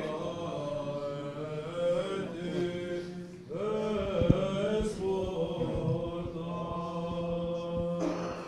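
Orthodox liturgical chant with a low note held steadily beneath the melody; the phrase breaks off and starts again about three and a half seconds in.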